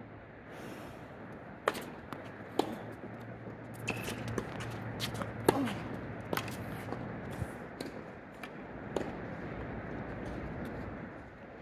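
Tennis rally on a hard court: rackets striking the ball and the ball bouncing, a series of sharp pops spaced under a second apart, the loudest about five and a half seconds in, petering out by about nine seconds as the point ends.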